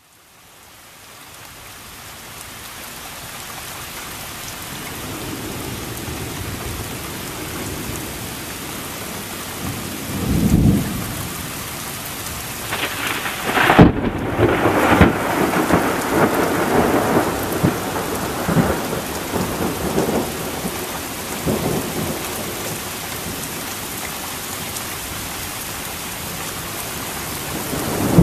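Heavy rain falling steadily, fading in over the first few seconds, with thunder: a low rumble about ten seconds in, then a sharp close crack about fourteen seconds in that rolls on in rumbles for several seconds. Another rumble builds at the very end.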